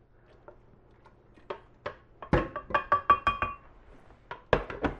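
A spoon clinking and scraping against a stainless steel pot as cooked chunks are scraped into a glass blender jar: a string of clinks and knocks from about a second and a half in, with a brief ringing tone around the third second, then a couple of louder knocks near the end.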